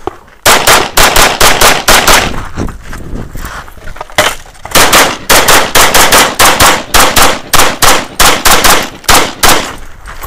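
Rapid strings of shots from an Open-division competition pistol, fired in quick pairs and groups at several shots a second. A short lull in the middle holds only a few scattered shots.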